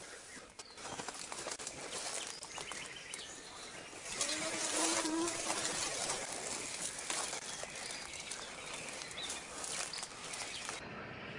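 Leaves, grass and twigs rustling and crackling as someone pushes through dense brush on foot, louder from about four seconds in. A brief low steady tone is heard around five seconds in.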